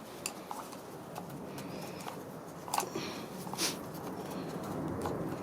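A few light clicks and taps of hands fitting a new rubber O-ring onto a plastic oil filter housing cap.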